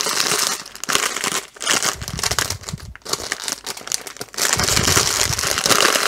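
Plastic crinkling as hands press and handle a clear plastic bag packed with small bags of diamond painting drills. It comes in irregular bursts with short lulls, and it grows louder in the second half.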